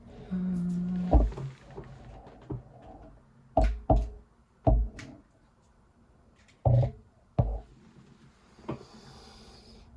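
Metal parts and tools being handled and set down on a workbench: a series of sharp clunks and knocks, about six loud ones spread irregularly over the several seconds, with fainter taps between them.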